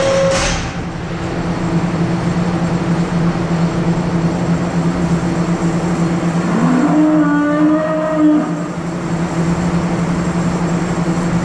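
Steady mechanical hum of dairy-barn machinery, with a short clank about half a second in. Around the middle a drawn-out tone rises and then holds for over a second before stopping.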